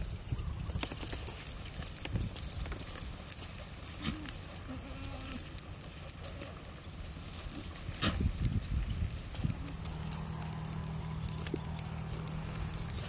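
Many small birds chirping, a dense high tinkling twitter that goes on throughout, over a low rumble.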